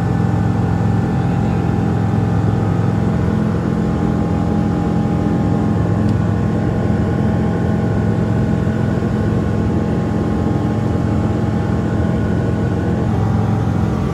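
Light aircraft's piston engine and propeller heard from inside the closed cockpit in cruise flight: a steady, unchanging drone.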